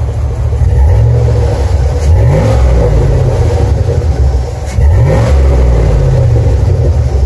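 Pickup truck engine running under load and accelerating at low speed, its pitch climbing twice, about two seconds and about five seconds in.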